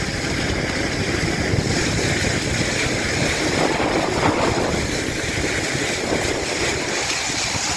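Wind buffeting the microphone over the steady rush of water and the hum of a boat under way.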